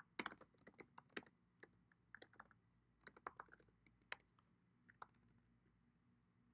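Faint typing on a computer keyboard: irregular clusters of key clicks that thin out and stop about five seconds in.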